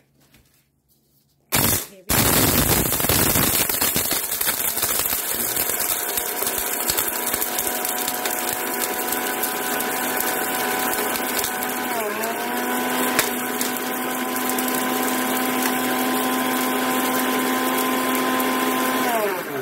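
Bosch food processor's mill attachment grinding dried eggshells and snail shells into a coarse powder. The motor starts with a sharp burst about one and a half seconds in, then runs loud and steady, a whine over gritty noise, with a brief dip in pitch partway through. Its pitch falls away as it is switched off near the end. Quite noisy.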